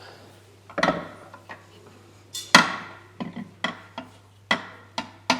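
Hand tools knocking and clinking against metal engine parts as a stuck con rod is worked on the crankshaft: a few separate sharp knocks, the loudest about halfway through, then a run of taps about two or three a second near the end.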